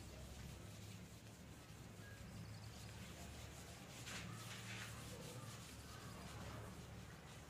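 Faint rubbing of a cloth duster wiping chalk off a blackboard, with a couple of stronger strokes about four seconds in, over a low steady hum.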